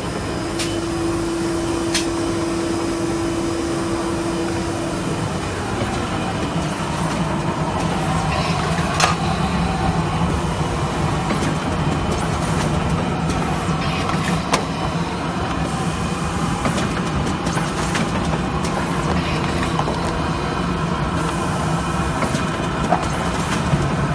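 Automatic rigid-box making machines (a gluing and spotter machine and a box forming machine) running. A steady mechanical drone carries sharp clicks and knocks from the mechanism every few seconds, with a steady hum tone over the first five seconds.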